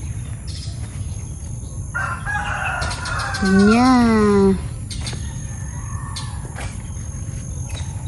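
A rooster crowing once, about two seconds in.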